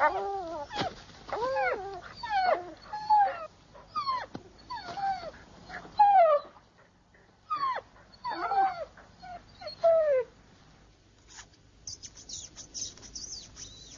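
A dog whimpering and yelping in a long string of short whines, each falling in pitch, for about ten seconds. After a brief lull, faint very high squeaks follow near the end, fitting newborn kittens mewing in their straw nest.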